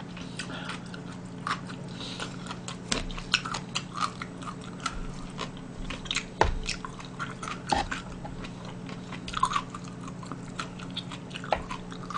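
A person chewing and eating spicy fish cake, with wet mouth clicks and wooden chopsticks tapping and scraping in a plastic food container. A steady low hum runs underneath.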